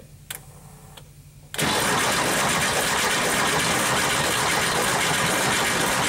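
1973 Porsche 914 engine cranking on its starter, starting about one and a half seconds in and holding steady without revving up. This is a no-start test: one fuel injector is pulled out of the engine but still connected, so its spray can be checked while cranking.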